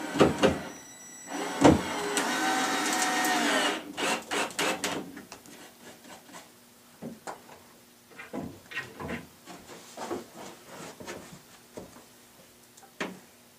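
Power drill driving a screw into the cabinet's back panel: the motor whines steadily for about two seconds and drops in pitch as it stops, after a few sharp knocks. Light clicks and knocks of handling the wood and screws follow.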